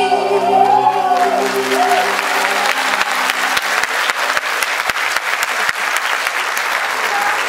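Audience applauding, a dense steady clapping that rises in about the first second as the song's last held notes fade out.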